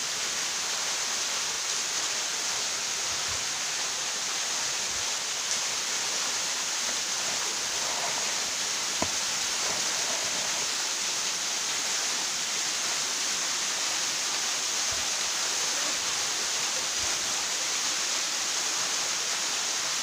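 Thin waterfall splashing down a rock face into a pool: a steady rushing of falling water.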